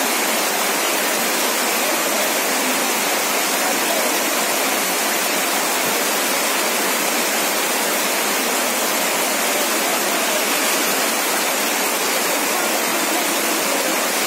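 Steady downpour of rain falling onto standing floodwater, a dense even hiss that does not let up.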